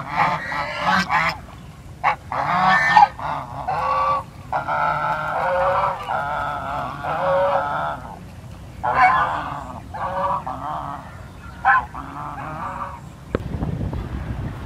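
A flock of domestic geese honking in repeated, overlapping bouts of calls. The honking stops shortly before the end, giving way to a rushing noise.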